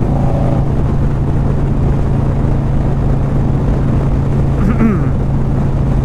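Harley-Davidson motorcycle's V-twin engine running at a steady cruise, with wind rushing past.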